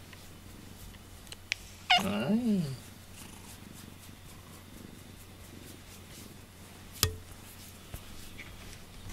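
A cat gives one short meow about two seconds in, rising then falling in pitch. A single sharp click comes about seven seconds in.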